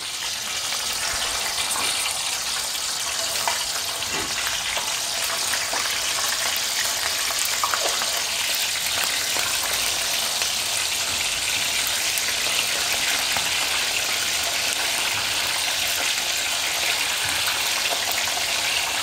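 Pieces of fish frying in hot oil in a pot, a steady dense sizzle with small crackles that builds over the first couple of seconds as the pieces go in and then holds even.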